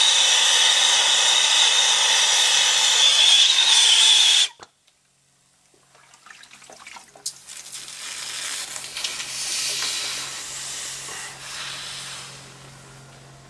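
Brazing torch flame hissing steadily on a copper refrigerant line joint, cut off abruptly about four and a half seconds in. After a short quiet, a softer hiss with scattered ticks swells and fades as a wet rag is pressed onto the hot brazed joint to cool it.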